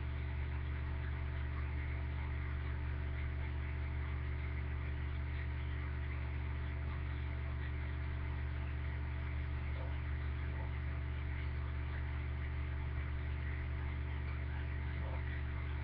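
Steady low hum with a faint hiss, unchanging throughout, with no speech.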